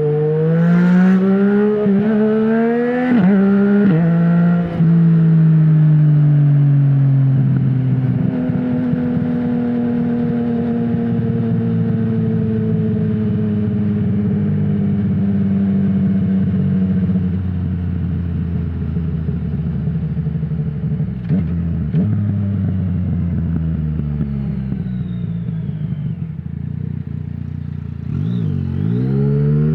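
Yamaha MT-09's three-cylinder engine through an Akrapovic full exhaust with no dB killer, revving up hard with two quick upshifts in the first few seconds. The revs then fall slowly over some twenty seconds as the bike slows on engine braking, with two sharp cracks partway through. Near the end the revs dip and climb steeply again as it accelerates.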